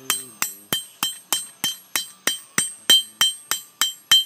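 Hand hammer striking hot steel on an anvil, about three even blows a second, each with a bright metallic ring. This is the tip of a forged tong jaw being flattened out.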